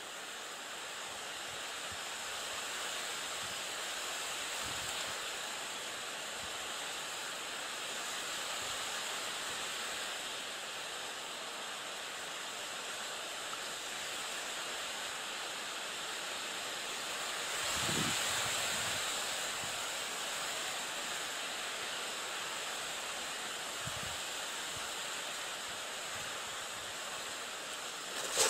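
Steady rushing noise of wind through marsh reeds, swelling briefly about two-thirds of the way in.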